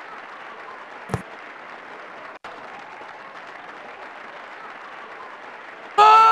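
Steady background noise of spectators at a youth football match, with a single thump about a second in. Near the end comes a loud, drawn-out shout from a spectator as play reaches the goalmouth.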